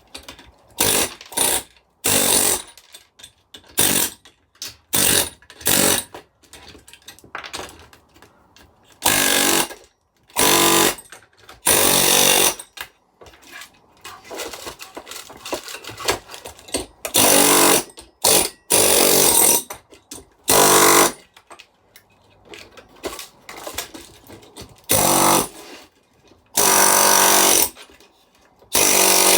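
Stanley pneumatic air hammer (chipping hammer) with its compressor turned up, firing in short on-off bursts of rapid chisel blows, each lasting from a fraction of a second to about a second and a half.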